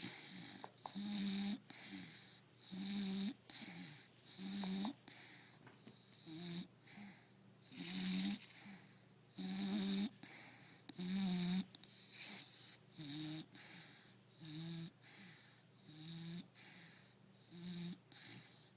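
A sleeping bulldog snoring: a regular train of rasping, buzzing snores, one about every second and a half, growing softer in the second half.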